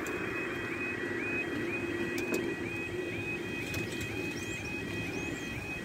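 Level crossing's electronic yodel alarm sounding, a rising tone repeated about four times a second, as the barriers lower. A low steady hum runs under it for the first couple of seconds.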